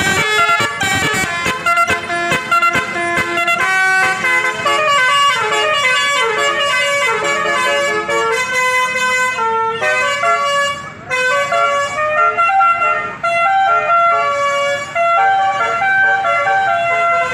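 Bus telolet horn, a Basuri multi-trumpet air horn, playing a tune: several horn tones sound together and step from note to note in quick succession, with short breaks about two thirds of the way through.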